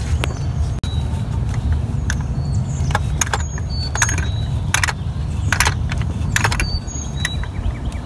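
A 24 mm socket and its fittings clicking and clinking against metal as a new oil pressure sensor is threaded in by hand. A steady low hum runs underneath.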